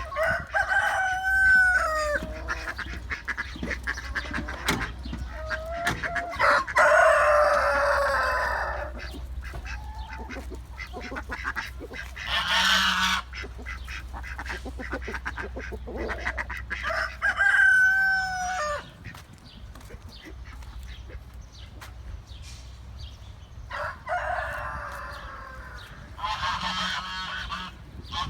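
Chickens and other farmyard poultry calling. Loud, drawn-out calls come every few seconds, with scattered short clucks and clicks between them, over a steady low rumble.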